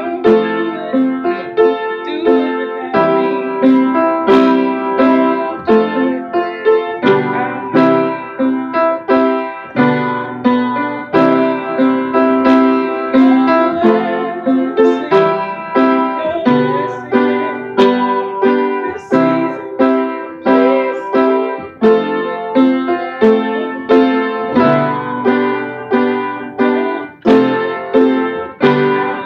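Piano-sound keyboard playing a slow worship accompaniment: full sustained chords re-struck about twice a second.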